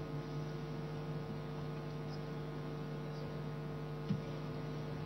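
Steady electrical mains hum with a low hiss, and one brief click about four seconds in.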